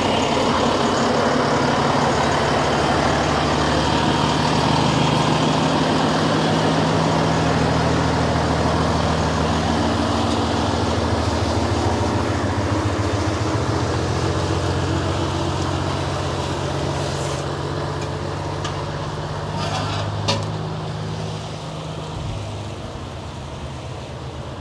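Heavy recovery truck's diesel engine running as the truck moves slowly, a steady low engine note that grows fainter over the last several seconds. A single sharp click comes about four seconds before the end.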